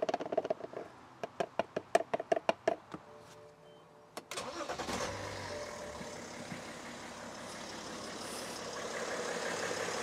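A quick run of clicks and knocks as the oil filler cap is screwed down, then about four seconds in a BMW M57 straight-six diesel cranks, starts and settles into a steady idle. This is the first start after an oil and filter change, with the new oil filter still dry.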